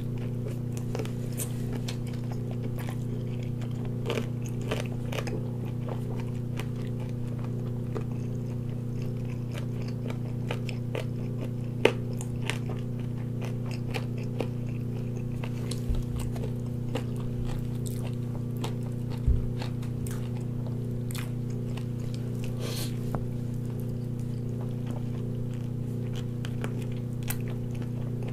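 A person eating a large sauced chicken leg: tearing meat off the bone by hand, with chewing and small wet clicks and smacks scattered through. A steady low hum runs underneath.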